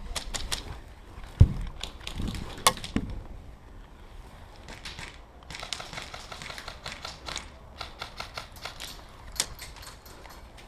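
Airsoft guns firing: quick runs of sharp mechanical clacks, with a heavy thump about a second and a half in.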